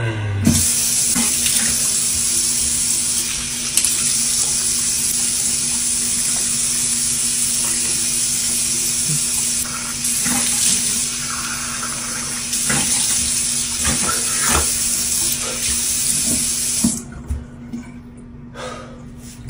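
Bathroom tap running into a sink, with scattered splashes as a face is washed in the water; the tap shuts off near the end.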